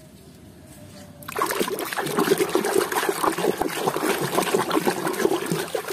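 Water sloshing and splashing as a hand scrubs a muddy toy figure in a tub of water, starting about a second and a half in and going on with quick, uneven swishes.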